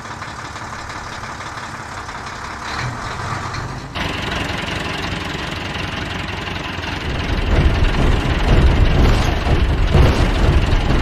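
Vehicle engine running steadily; about four seconds in the sound changes abruptly, and from about seven seconds a louder, deeper engine rumble takes over.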